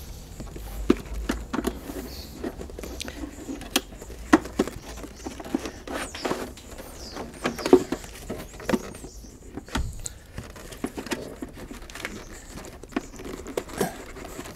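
A paper air filter and the plastic airbox parts of a BMW K1100LT being worked into place by hand: irregular light clicks, knocks and rustling of plastic.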